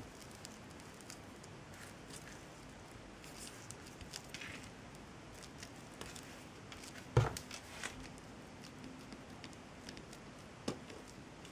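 Quiet handling sounds of handicraft work at a table: faint rustles and small clicks, with one sharper knock about seven seconds in and a lighter one near the end.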